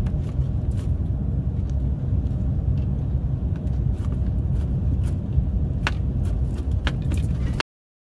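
Inside the cab of a moving semi-truck, the low rumble of the truck on the road, with scattered sharp taps of a knife chopping tomatoes on a wooden cutting board. The sound cuts off abruptly near the end.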